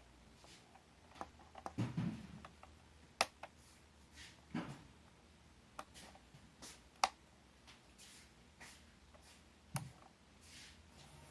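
Handling noise: irregular sharp clicks and a few soft knocks, as of small hard objects being picked up and set down. The sharpest clicks come about three and seven seconds in.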